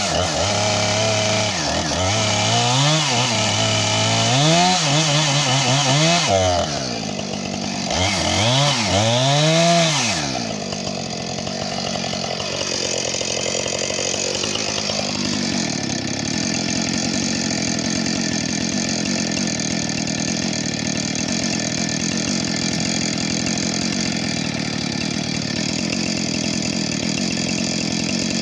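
Husqvarna 460 Rancher two-stroke chainsaw running hard, its engine pitch rising and falling several times in the first ten seconds as it revs and bogs in the cut. From about halfway on it runs at a steady pitch.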